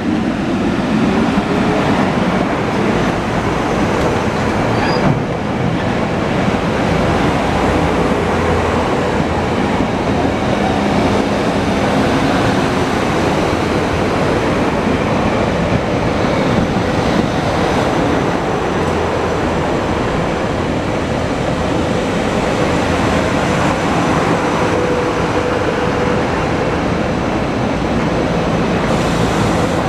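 Six-car set of GE Silverliner IV electric multiple-unit cars pulling away from the station, wheels running on the rails. A motor tone rises in pitch over the first two seconds as the train gathers speed, then holds steady.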